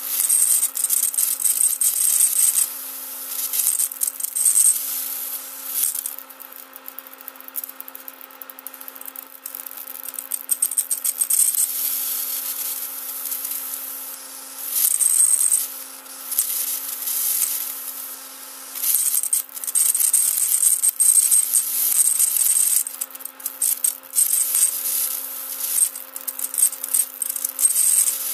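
High-voltage arc from a MOSFET-driven flyback transformer, hissing and crackling. It comes in uneven loud spells with a high whine in the loudest ones, and there is a quieter stretch of sharp crackles about six to ten seconds in. A faint steady low hum sits underneath.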